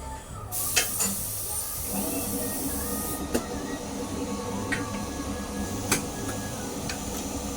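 A loud hiss of rushing air for about two and a half seconds, over a steady mechanical running noise, with scattered sharp clicks and knocks.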